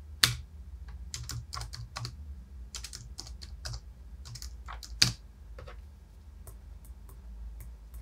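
Keystrokes on a Logitech computer keyboard's numeric keypad, entering figures into a calculator: a quick run of clicks, one louder click about five seconds in, then only a few scattered taps.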